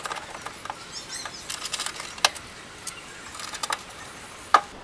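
Scattered light clicks and rattles of a window regulator assembly, its wiring and plastic clips being handled inside a car door's stripped inner panel, with a sharp click a little past two seconds in and another near the end.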